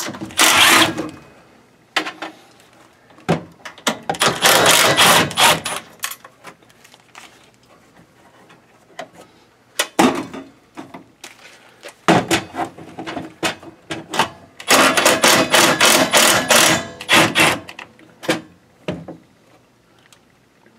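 Cordless drill with a socket spinning the 10 mm nuts off the studs of a boiler's combustion blower and gas valve assembly, in about five short runs with pauses between.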